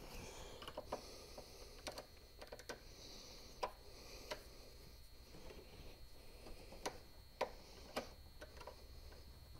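Faint, irregular small clicks and scrapes of a screwdriver turning the screw of a terminal on a power inverter's hardwire terminal block, clamping a stripped wire.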